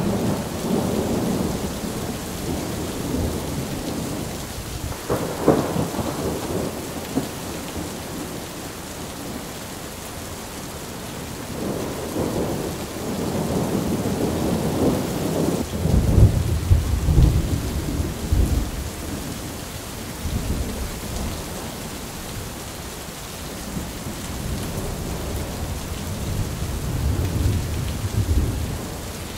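Heavy rain falling steadily with rolling thunder, a storm soundtrack laid over the rain footage; the deepest, loudest thunder rumbles come about halfway through.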